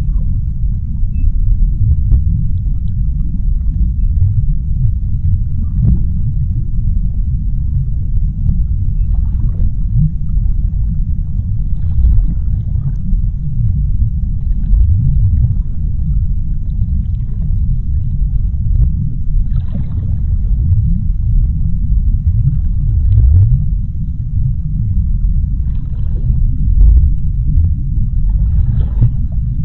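Underwater sea-floor ambience: a deep, steady rumble, with faint short crackles now and then.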